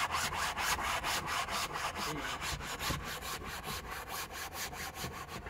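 Fabric car headliner being scrubbed by hand, quick even back-and-forth strokes, about five or six a second, each a short scratchy rub.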